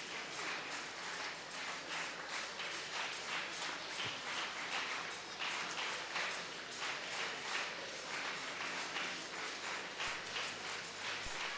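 Crowd noise from a large congregation: a steady hiss of many people moving about, with dense irregular taps and shuffles.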